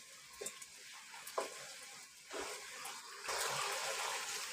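Onion-tomato masala sizzling in oil in a wok while it is stirred and fried with a wooden spatula, with a couple of light spatula scrapes early on; the sizzle grows louder about three seconds in.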